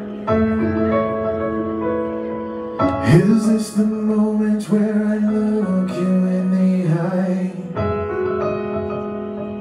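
Live band playing slow, held piano chords of a ballad intro through the venue's sound system. For a few seconds in the middle a voice rises over the chords.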